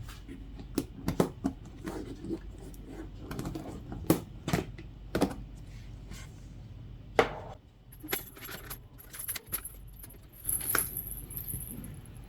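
Irregular clicks and clinks of small hard objects knocking together, over a low steady hum.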